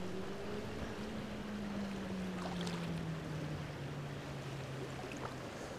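Steady rush of a flowing creek, with a faint low hum that slowly drops in pitch and a few faint ticks.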